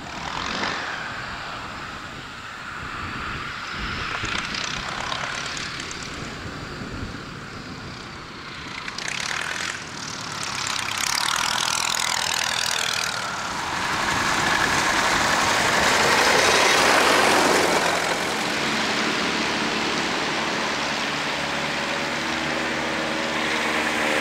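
Vintage biplane piston engines and propellers in low passes, swelling to the loudest as one goes by close about two-thirds of the way through. Near the end a triplane's engine runs at low power with a steady hum.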